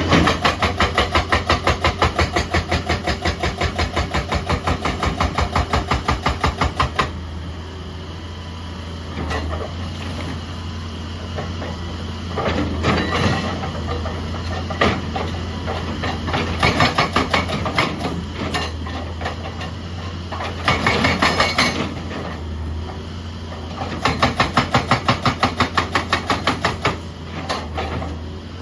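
Excavator-mounted hydraulic breaker hammering in rapid, even blows for about seven seconds. Then the excavator's diesel engine runs steadily between shorter, uneven bursts of hammering, with another run of rapid blows near the end.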